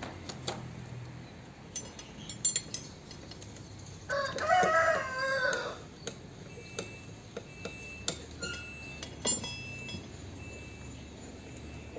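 A rooster crows once, a wavering call of under two seconds about four seconds in. Around it come scattered light metal clicks and clinks as steel gear parts are handled on a differential carrier.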